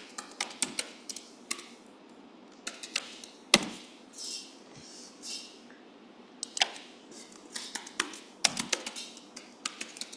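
Typing on a computer keyboard: a quick, irregular run of key clicks, with one much louder key strike about three and a half seconds in.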